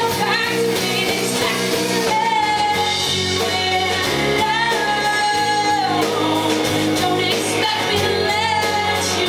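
A rock band playing live, with a lead vocal singing long held notes over guitar and the rest of the band.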